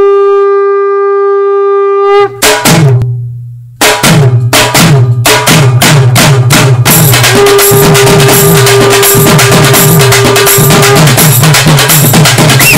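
Background music: a long held note from a wind instrument stops about two seconds in. Drum-led percussion then comes in with a fast, steady beat, and another held note sounds over it for a few seconds in the middle.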